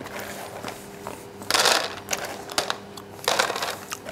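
Roasted pistachios being cracked out of their shells and the kernels dropped into a plastic tub: two short, loud rattling bursts, about a second and a half and three and a quarter seconds in, with scattered clicks between.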